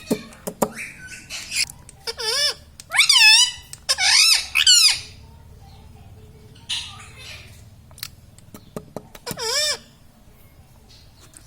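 Indian ringneck parrot calling: a run of harsh, quickly wavering calls between about two and five seconds in, and another one near the end, with a few short noisy chirps in between.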